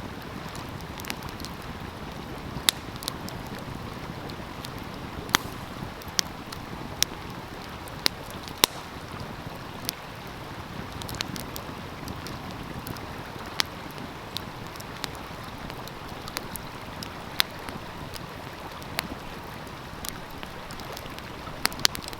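Wood fire crackling with sharp, irregular pops over the steady rush of a flowing stream; a quick run of pops near the end.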